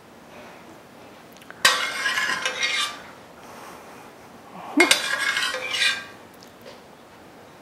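Metal spoon scraping and clinking against cookware while spreading tomato sauce, in two bursts about three seconds apart, each lasting about a second.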